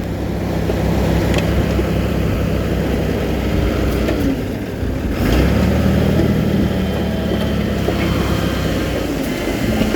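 Diesel engine of heavy earthmoving equipment running steadily, with a brief dip about five seconds in and then running louder.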